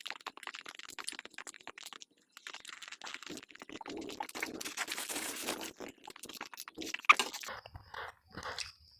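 Close-miked eating sounds: wet chewing and mouth clicks from someone eating a spicy rice meal, with a denser crackly stretch in the middle and one sharper click about seven seconds in.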